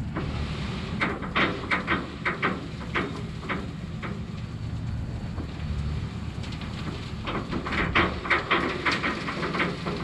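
Crushed base rock sliding off the tilted steel bed of a dump trailer, stones clattering against the steel in two spells of sharp clicks, about a second in and again near the end. Under it runs a steady low machine hum.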